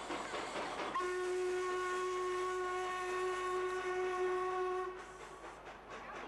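Steam locomotive whistle sounding one long steady blast of about four seconds, starting about a second in, with the hiss of the passing engine before and after it.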